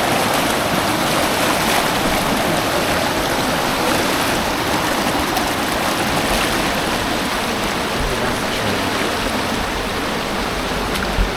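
Creek water rushing steadily over rocks and cascades, a dense, even roar.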